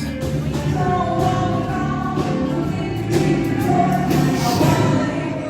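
Live band's sound check: a song played with singing, the voices holding long notes over a steady bass.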